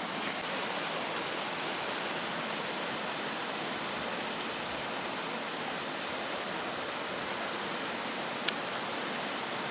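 Steady rush of flowing water, with one light click near the end.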